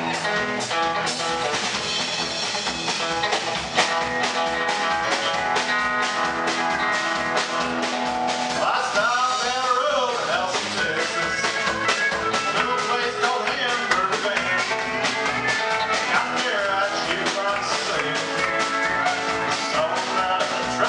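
Live country band playing a Bakersfield-style number on Telecaster electric guitar, pedal steel guitar, keyboard and drums, over a steady drum beat. About nine seconds in, a run of bending, sliding notes rises above the band.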